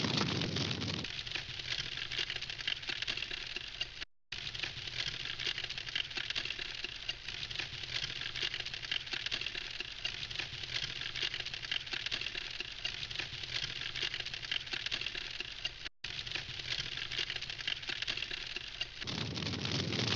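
Wood campfire crackling steadily, a dense run of small pops and snaps. A low rumble sits under it in the first second and comes back near the end. The sound cuts out briefly twice, about 4 seconds in and again near 16 seconds.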